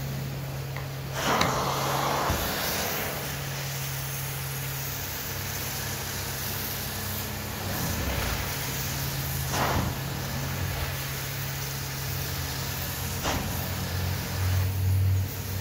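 Devastator hot-water extraction wand drawn across carpet: a steady hiss of spray and suction over the steady hum of the extraction machine, with a few louder swishes as the wand starts a stroke.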